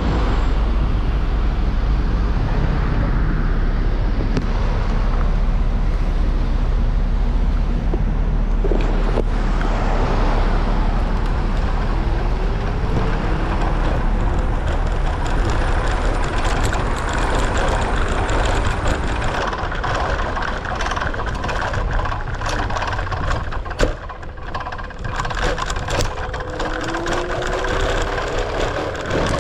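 City street traffic: cars and other vehicles running and passing, with a heavy low rumble and a few short rising and falling tones of engines changing speed.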